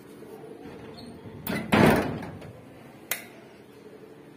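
A door pushed open with one short, loud scrape about a second and a half in, followed by a single sharp click about a second later.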